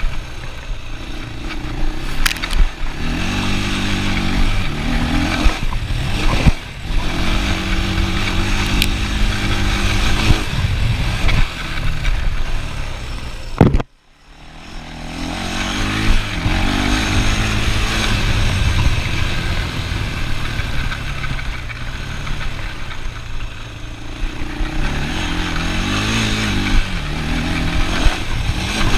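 ATV engine running as it is ridden, its pitch rising and falling with the throttle. About 14 seconds in there is a sharp knock, then the sound drops out briefly and builds back up over a couple of seconds.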